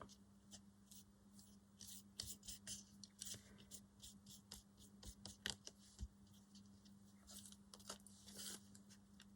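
Faint, irregular short scratchy strokes of a hand tool working on paper, over a low steady hum.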